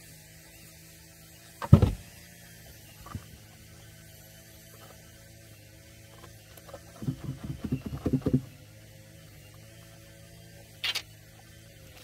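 Distant lawn mower engine running steadily. Over it, a loud thump about two seconds in and a quick run of knocks and rattles around seven to eight seconds, from plastic garden tubs being handled.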